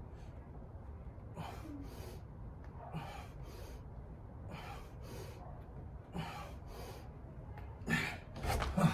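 A man breathing hard through a set of pull-ups: short, forceful breaths in and out, often in pairs every second or so, over a steady low rumble. The breaths grow louder and more strained near the end.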